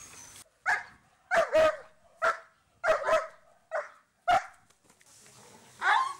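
A dog barking sharply about nine times in an uneven series, some barks coming in quick pairs.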